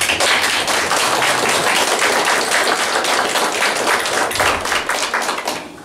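Audience applause: dense, steady clapping that dies away near the end.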